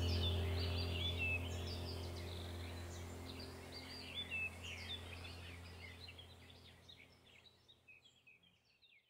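Small birds chirping and twittering over a low, steady hum, the whole soundscape fading out gradually to silence at the very end.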